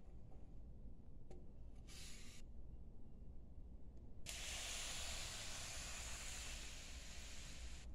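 Bubble-wrapped package sliding across a wooden tabletop: a steady hiss lasting about three and a half seconds that cuts off suddenly, after a brief scuff about two seconds in.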